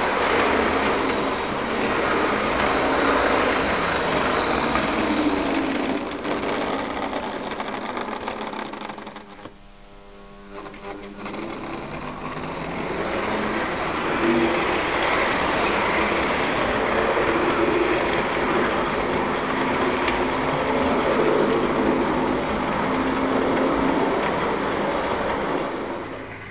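Model trains running on the layout: a steady whirring of small electric motors with the rumble of wheels on the rails. It dies away to a brief lull about a third of the way through, then builds again.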